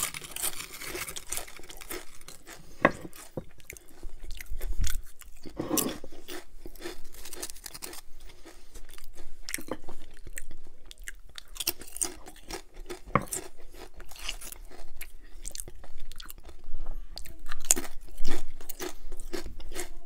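Potato chips being bitten and chewed, with many sharp, crisp crunches one after another.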